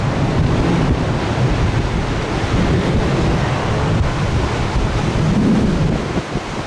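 Stormy sea surf rumbling steadily in storm-force wind, with wind buffeting the microphone. The surge swells briefly about five seconds in.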